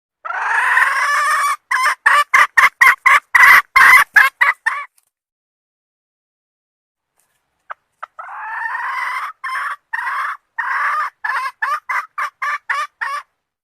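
Red junglefowl hen calling, the call used to lure a rooster. Two bouts, each a long drawn note followed by a quick run of short clucking notes, with a pause of about three seconds between them.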